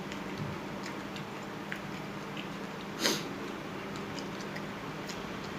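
A person eating noodle soup: faint chewing and scattered small clicks, with one short, loud, noisy burst about three seconds in, over a steady low hum.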